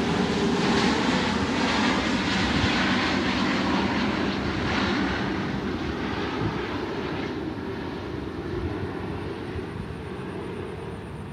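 Jet engine noise of a twin-engine Airbus A350 on final approach with gear down, passing overhead. The noise is loudest in the first few seconds and fades steadily as the aircraft moves away.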